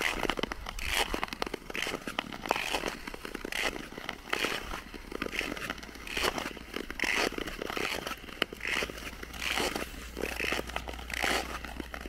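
Ice skate blades scraping across natural lake ice in a steady rhythm of strides, about one to two strokes a second, with small crackles between.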